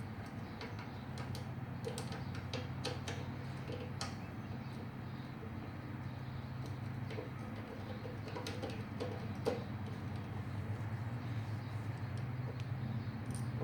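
Scattered light clicks and taps of hand tools on metal as a lawnmower carburetor is unbolted and removed, over a steady low hum, with faint bird calls in the background.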